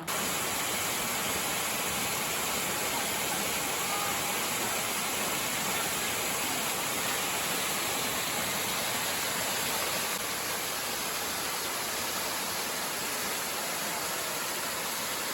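Waterfall on Reedy Creek, water rushing with a steady, unbroken noise.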